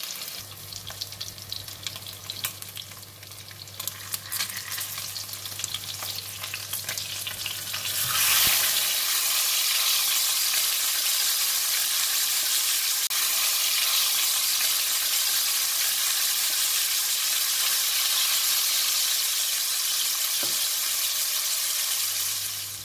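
Mackerel steak shallow-frying in a little oil in a wok, sizzling with small crackles. About eight seconds in, the sizzle jumps to a loud, steady hiss as the fish is turned over onto its raw side. It eases near the end.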